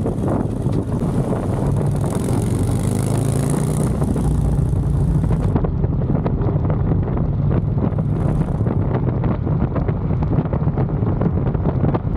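Harley-Davidson Street Glide Special's V-twin engine running steadily at road speed, with wind buffeting the microphone. The wind hiss is heavier for the first five seconds or so, then eases.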